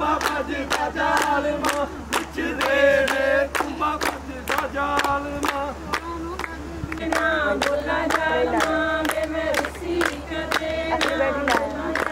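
A group of voices singing a chant-like song together over a steady beat of sharp claps, about three a second.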